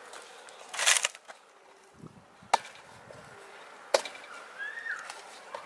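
Hand working masala-coated fish pieces in a large aluminium bowl: a short scraping rustle about a second in, then two sharp knocks against the metal bowl about a second and a half apart.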